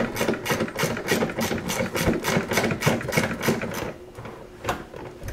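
Ratchet clicking in a quick, even rhythm, about six clicks a second, as a 7 mm bolt is backed out. It stops about four seconds in, followed by a couple of single clicks.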